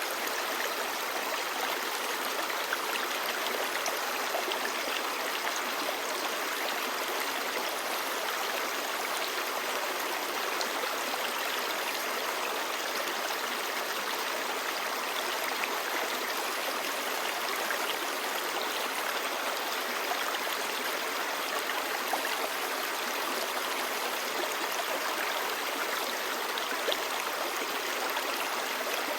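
Clear mountain stream babbling over rocks: a steady rush of running water with small splashes and gurgles.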